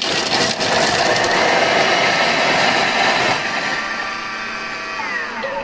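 Thermomix blade chopping vegetables at speed 7 for five seconds: a loud, dense whirring with the pieces rattling in the steel bowl, which thins after about three seconds. The motor then spins down with a falling pitch near the end.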